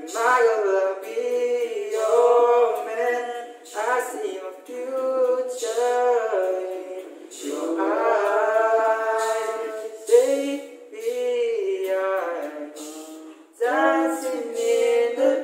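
A small group of voices singing a cappella, with long held notes and short breaths between phrases.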